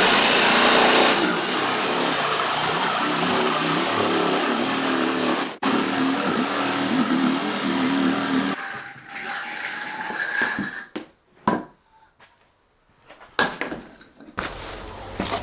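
An electric power tool running steadily, with a brief break about five and a half seconds in; it stops after about eight and a half seconds. A few sharp knocks and clatters follow.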